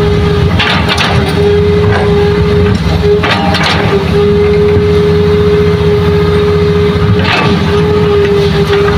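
Hitachi hydraulic crawler excavator's diesel engine running hard under digging load, with a steady whine over it. Rock and soil crunch against the bucket three times as it digs into the fill.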